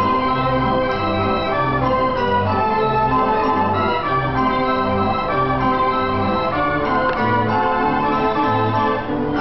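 Carousel band organ playing a steady, march-like tune, with its bass notes beating about twice a second under the melody.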